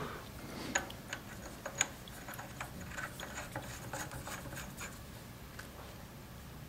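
Faint, irregular light clicks and ticks over a low steady hum.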